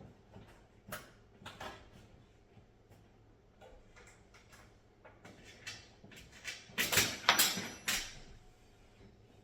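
Scattered clicks and knocks of metal raised-bed panels and hardware being handled during assembly, with a louder clatter of several strikes about seven to eight seconds in.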